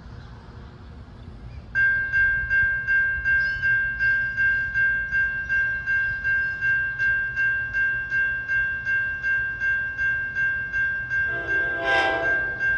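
Railroad grade-crossing warning bell starting about two seconds in and ringing steadily at about three dings a second, the signal that a train is approaching. Near the end a short, louder blast of a train horn sounds over it.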